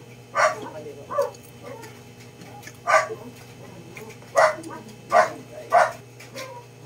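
An animal barking in short, separate yelps, about six over several seconds, unevenly spaced, over a steady low hum.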